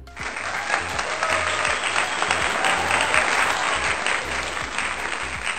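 Applause sound effect: a crowd clapping steadily, starting abruptly and running throughout, over faint background music.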